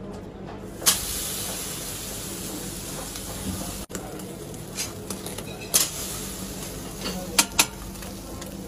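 Seafood sizzling on a hot charcoal grill grate. A sharp knock about a second in sets off a steady loud hiss, and there are a few sharp metal clinks later on.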